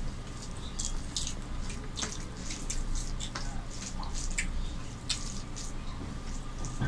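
Wet squelches and smacks of eating by hand: fingers kneading rice with curry on the plates and mouths chewing, a steady scatter of short wet clicks over a low steady hum.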